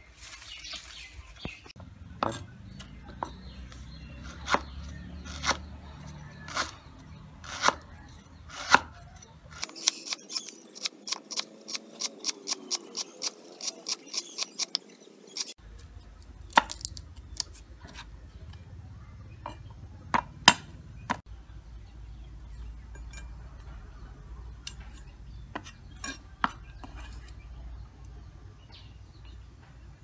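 Knife cutting lemongrass stalks and a cleaver chopping herbs and garlic on a wooden chopping block: irregular sharp knocks, then a quick even run of chops about four a second in the middle, then scattered chops and taps.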